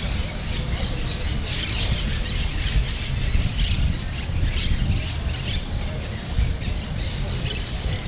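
Outdoor street ambience: a steady low rumble, with several short, scattered bird squawks.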